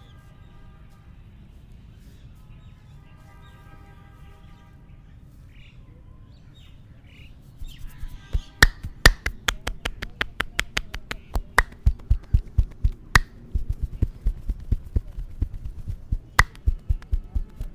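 Head massage: rapid rhythmic hand slaps and taps on the head, several a second, with sharp clicks like finger snaps mixed in, starting about seven seconds in after a quieter stretch.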